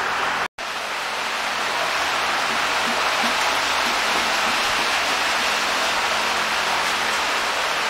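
Steady rain, an even hiss with no knocks or other events. A brief gap of silence about half a second in breaks it.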